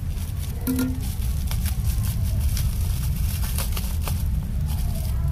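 Black bubble-wrap packaging crinkling and crackling as it is cut open and pulled apart by hand, with many short crackles over a steady low rumble.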